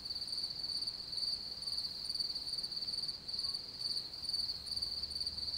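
Crickets chirring in a continuous high-pitched trill, even and unbroken.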